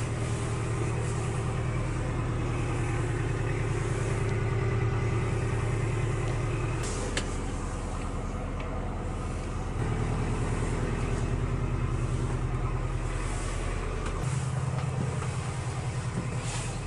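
Narrowboat's diesel engine running steadily, heard inside the cabin as a low drone that shifts in tone a few times, with a couple of faint clicks.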